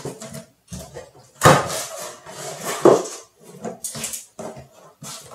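Cardboard box flaps being pulled open and folded back, the cardboard scraping and rustling in uneven strokes, loudest about one and a half and three seconds in.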